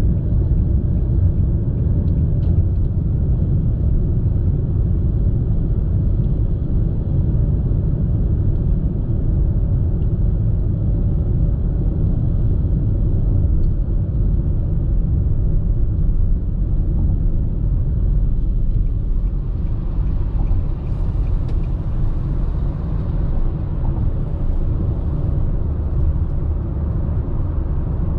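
Steady low rumble of road, tyre and engine noise inside the cabin of a Nissan Sylphy cruising at highway speed. About two-thirds of the way through, a higher hiss joins in over the rumble.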